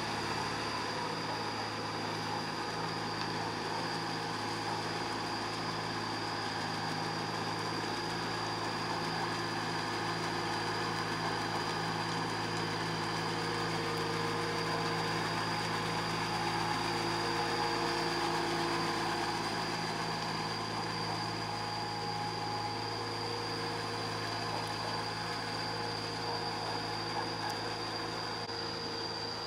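Small tractor's diesel engine running steadily as it works a flooded rice paddy on steel cage wheels, with a thin, steady high tone over it.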